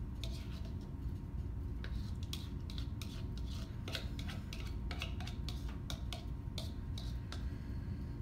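A spoon scraping and clicking against the side of a mixing bowl as egg mixture is scooped out and portioned, in many short, irregular clicks over a steady low hum.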